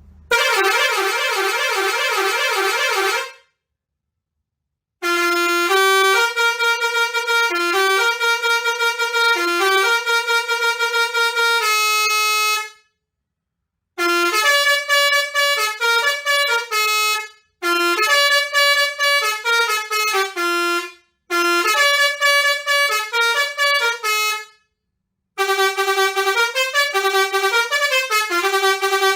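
Basuri six-trumpet air horn playing its melodies one after another. It starts with a quick two-note warble for about three seconds, then plays several note-by-note tunes, with short silences between them.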